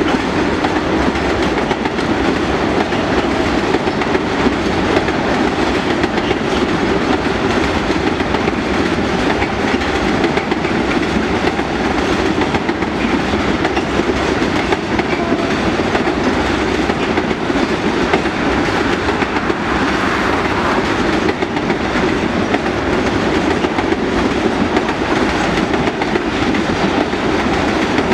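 Freight train wagons rolling past steadily, the continuous noise of steel wheels running on the rails.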